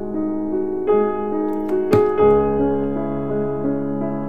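Background piano music: soft held chords, with new chords entering about a second in and again about two seconds in, and a brief click just before the second change.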